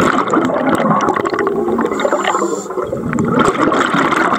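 Masses of air bubbles gurgling and rushing underwater, a continuous dense bubbling with many small pops and crackles.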